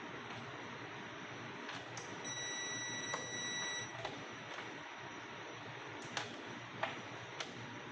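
A multimeter's continuity buzzer beeps once, a steady high tone lasting about a second and a half, heard during electrical testing of the vacuum cleaner's motor and cord. Several sharp clicks of probes and handling come before and after it over a faint steady hiss.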